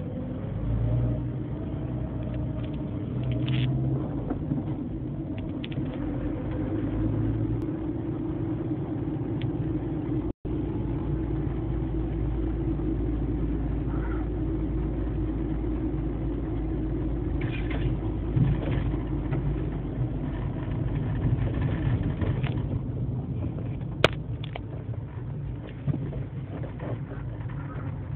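Fiat Palio ELX 1.4 running with a steady low rumble, carrying the unexplained noise from the front passenger-side wheel that several mechanics could not identify. A single sharp click comes near the end.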